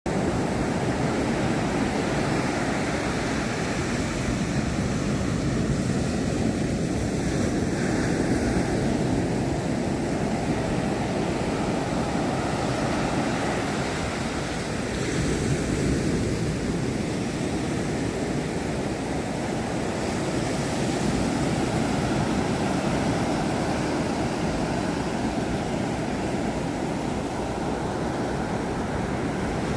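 A storm: a steady rushing noise that swells and eases a little, with no distinct hits or tones.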